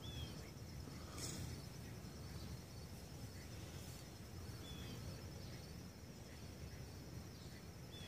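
Quiet outdoor ambience: a steady high, thin insect trill with a few faint, short, falling bird chirps, and a soft click about a second in.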